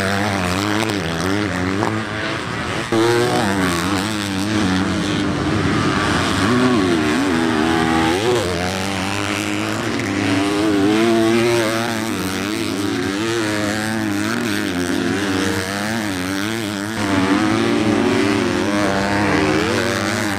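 Several motocross race bikes' four-stroke engines running on the track, overlapping, their pitch rising and falling again and again as the riders open and close the throttle and shift through the gears.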